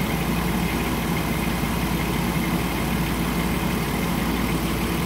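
Minivan engine idling steadily with the air conditioning on while its system is being charged with R-134a refrigerant: an even, unchanging hum.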